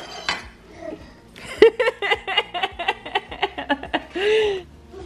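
A boy laughing in a quick run of 'ha-ha' pulses for about two seconds, then one short voiced sound just after.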